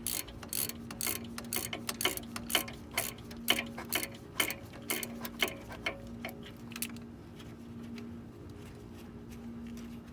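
Socket ratchet clicking in quick, even strokes, about three to four clicks a second, as it backs out an already-loosened rear brake caliper bolt; the clicking fades to a few faint clicks about seven seconds in.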